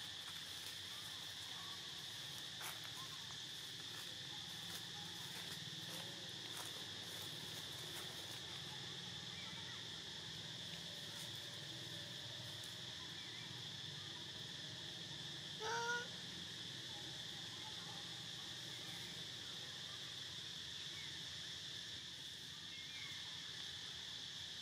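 Steady, high-pitched insect chorus of crickets or cicadas. About 16 seconds in, one brief pitched call, an animal squeak, briefly rises above it.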